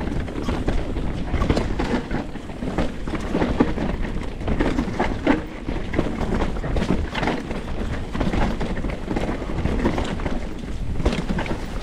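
Canyon Strive enduro mountain bike descending a rough trail at speed: tyres rumbling over rocks and roots, with constant irregular clattering and knocking from the chain and frame, and wind on the microphone. The rider calls the bike's noises ugly.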